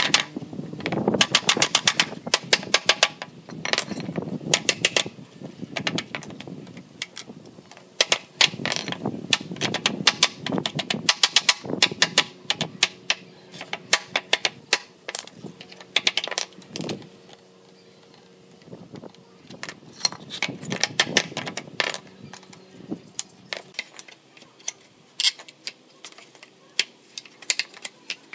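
Hammer knocking on the wooden planks and nails of an old cable reel being taken apart, in quick runs of sharp taps with short pauses and a quieter lull a little past the middle, with light metallic clinks of nails.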